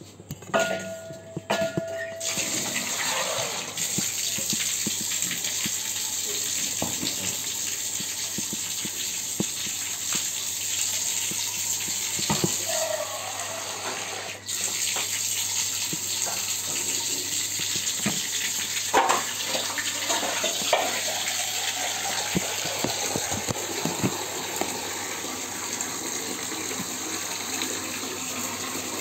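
Steady rush of running water, starting about two seconds in, with scattered clicks and a few knocks over it.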